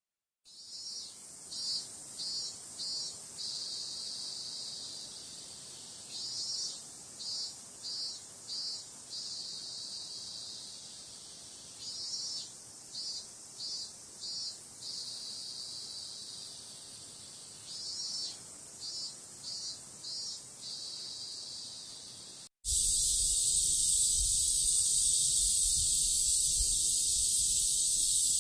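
Cicadas calling: a steady high buzz broken about every six seconds by a phrase of four or five loud, rapid pulses. About three-quarters of the way through it cuts to a different, louder recording of cicadas in a continuous high drone.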